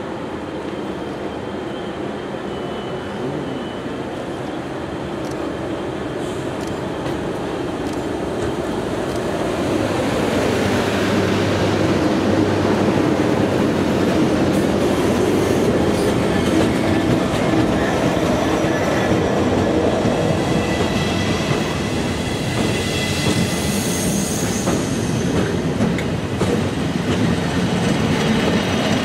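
A line of locomotives, a Class 90 electric leading a Class 66 diesel and a second Class 90, passes slowly along the platform. The rumble grows louder about ten seconds in as the locomotives come alongside, with high wheel squeal and clicking over the rail joints in the second half.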